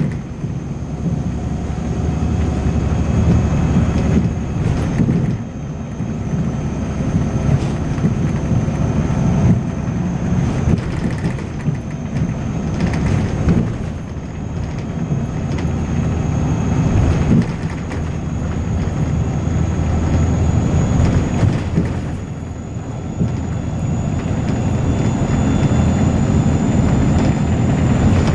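Volvo B6LE bus under way, its diesel engine and ZF gearbox working hard, with the sound swelling and easing several times. A thin, steady high-pitched whine runs over it throughout: the strange high-pitched noise this bus makes.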